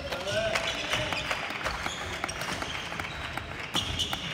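Badminton hall during play: a run of sharp knocks and clicks from rackets, shuttlecock and feet, with shoes squeaking on the court floor, a short one near the start and a high one near the end, over a murmur of voices.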